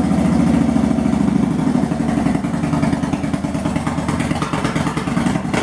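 A cruiser motorcycle's V-twin engine idling steadily, with an even run of firing pulses.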